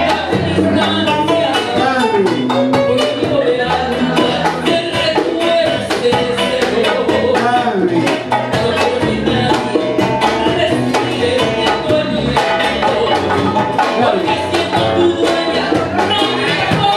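Live Latin band performing: a woman sings a melody into a microphone over guitar and steady hand percussion.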